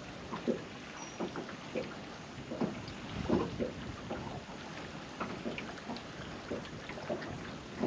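Scattered light knocks and taps, irregular, a few each second, over a low wind rumble on the microphone, in a small aluminium fishing boat.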